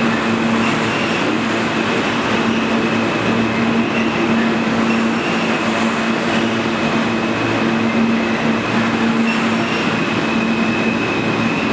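R160 subway train running along the platform, its cars passing close by: a steady rumble of steel wheels on rail, with a steady low hum and a thin high tone over it.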